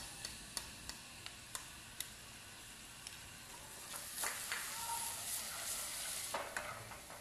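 Minced shallots sizzling in hot oil in an aluminium pot while wooden chopsticks stir them, with a few light clicks of the chopsticks against the pot in the first two seconds. The sizzle grows louder about four seconds in.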